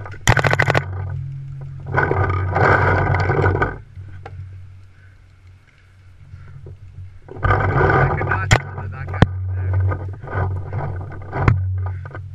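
Handling noise at the camera: rustling and scraping in two long stretches with a few sharp knocks, over a steady low hum.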